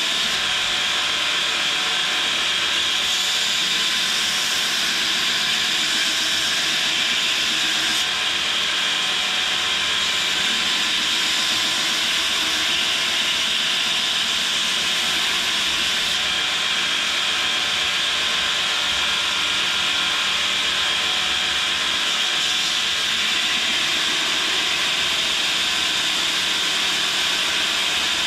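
Belt grinder running with a 120-grit ceramic belt while the bevels of a hardened steel kiridashi blade are cleaned up against it: a steady grinding noise.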